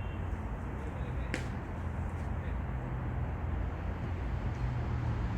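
Steady low outdoor rumble with a single sharp crack about a second in.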